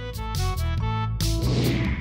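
Background music: a quick melody of short notes over a bass line, with a steady beat.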